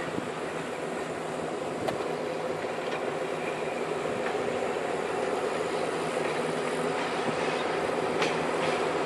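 A diesel railcar approaching slowly, its engine humming steadily and growing gradually louder as it nears, with a couple of sharp clicks from the track.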